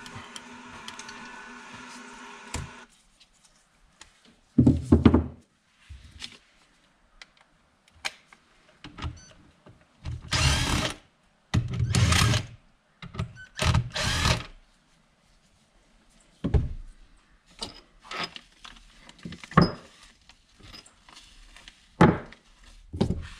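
A cordless power gun's motor whirs steadily for about three seconds and stops. Then come scattered thunks and clatters of metal transmission parts and bolts being handled, loudest in a few clusters in the middle.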